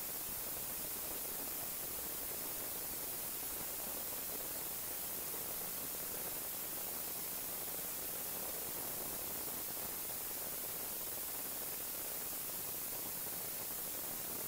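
Steady hiss like static or white noise, even throughout, with no knocks or clicks standing out above it.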